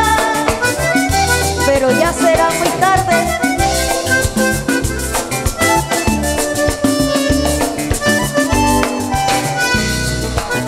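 Panamanian música típica band playing live in an instrumental passage: a button accordion carries the melody over congas and guitars with a steady dance rhythm.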